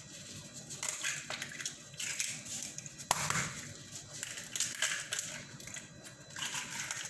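Eggshells cracking and crunching as eggs are broken open by gloved hands over a mixing bowl, with irregular crackles and one sharp crack about three seconds in.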